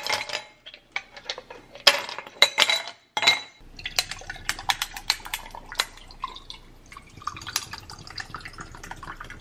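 Ice cubes clinking into a glass tumbler, then coconut water poured over the ice from about four seconds in, the liquid running into the glass with many small clinks and clicks from the ice.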